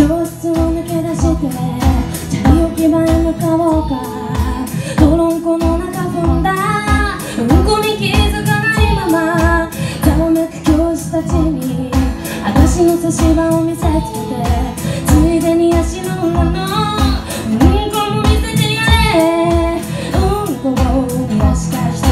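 Woman singing a pop song, accompanied by strummed acoustic guitar with a steady beat.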